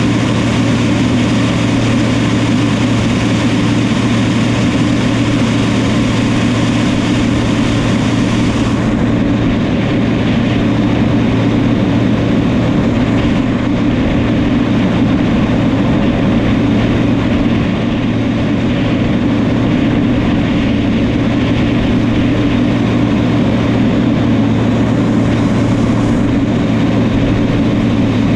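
New Holland crawler tractor's diesel engine running steadily under work, a constant loud drone.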